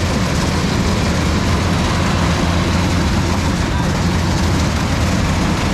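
A large engine running steadily and loudly, with a strong low drone and no change in speed.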